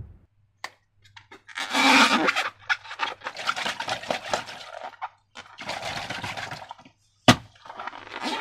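Slime being squeezed and worked by hand, giving two long runs of crackly, sticky squelching. There is a sharp click about seven seconds in.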